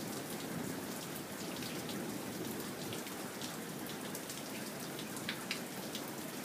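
Steady rain falling in a thunderstorm, with frequent sharp ticks of single drops hitting a surface close by.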